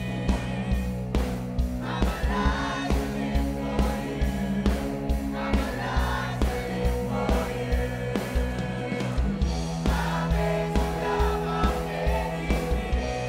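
A mixed choir of young men and women singing a gospel worship song together, over music with a steady beat of about two strokes a second and sustained bass notes.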